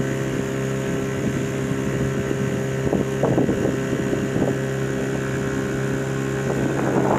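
Boat engine idling with a steady, even hum, with a few irregular rushes of noise between about three and four and a half seconds in.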